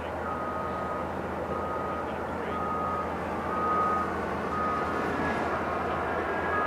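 A heavy machine's backup alarm beeping steadily, about once a second, over the continuous low rumble of working machinery.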